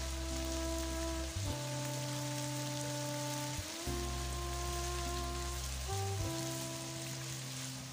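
Fish pieces sizzling as they fry in oil in a wok, an even hiss, under background music of steady held chords that change about every two seconds.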